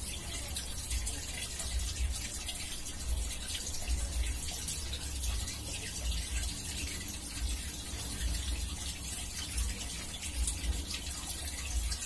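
Water gushing steadily out of a washing machine's drain hose and splashing onto a concrete floor, over an uneven low rumble. The drain flows strongly because the clog of lint and leftover bits from the washing has been cleared.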